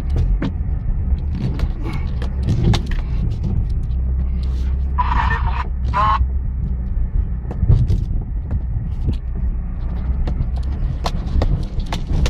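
An off-road 4x4's engine running low and steady, heard inside the cabin as the vehicle crawls down a rocky slope. Frequent knocks and rattles come from the body and tyres going over rocks.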